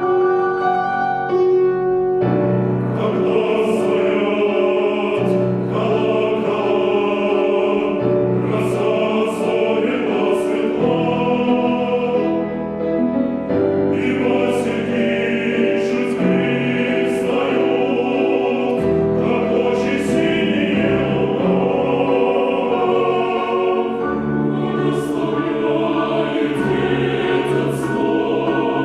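Chamber choir singing sustained, multi-part lines with piano accompaniment.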